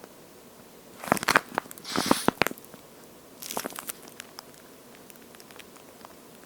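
Water-filled toast-shaped squishy toy being squeezed by hand: a cluster of wet, crackly squelches about a second in, then a shorter, softer one near the middle.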